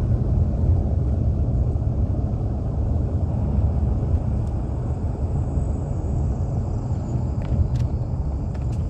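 Car interior noise while driving slowly: a steady low rumble of tyres on the road and the engine, with a few faint ticks near the end.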